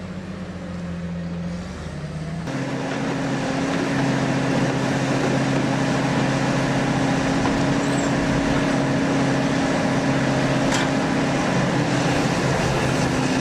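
Cummins diesel engine of a 600-horsepower Kenworth C501 logging truck running under load, a steady deep drone. Its pitch steps down twice in the first two seconds; about two and a half seconds in the sound changes abruptly and runs louder and steadier.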